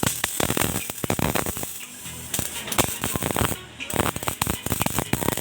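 Electric arc welding: the arc crackling and spitting with dense, irregular sharp pops.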